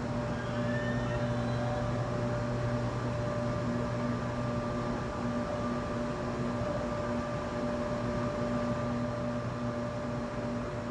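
Electric train heard from inside the carriage: a steady mechanical hum with several steady tones over an even rushing noise.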